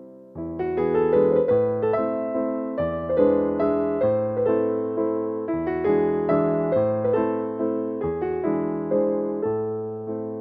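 Background music: a gentle electric piano playing soft, sustained chords, each note struck and then fading.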